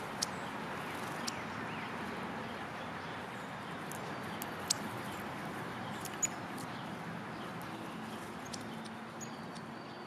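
Steady outdoor background hiss with a few sharp, scattered clicks of a sparrow's beak pecking at seed and peanuts on a wooden board.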